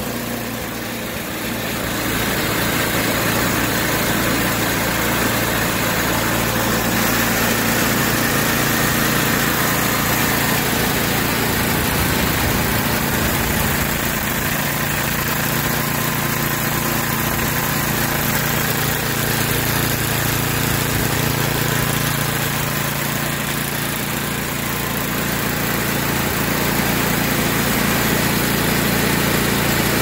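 Tecumseh 8 hp single-cylinder four-stroke snowblower engine idling steadily. It runs without surging now that its clogged carburettor screw has been cleaned with carb cleaner.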